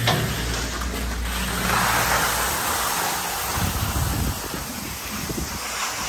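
Skis sliding and scraping over snow, with wind rushing over the moving microphone; the scraping hiss swells about two seconds in.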